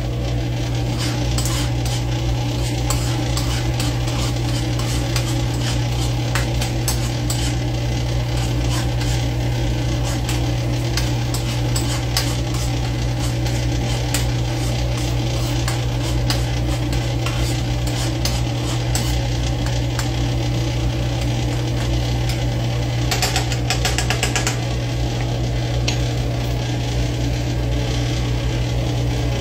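Chopped onions sizzling in oil in a pan over a low flame, with fine crackles throughout over a steady low hum. There is a brief burst of rapid scraping about three quarters of the way in.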